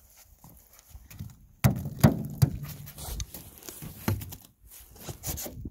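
A run of knocks and thuds on an ice-crusted aluminum boat, starting with a hard thump about a second and a half in and going on irregularly.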